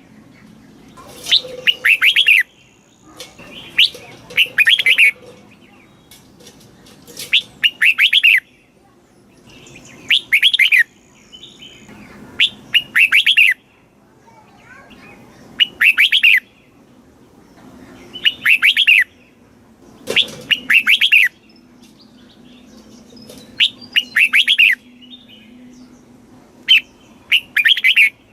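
Red-whiskered bulbul singing a short song phrase over and over, about once every two to three seconds.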